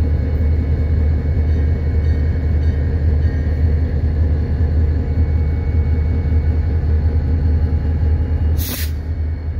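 Diesel locomotive engine idling nearby: a steady, loud low rumble with a constant hum above it. A brief hiss cuts in near the end.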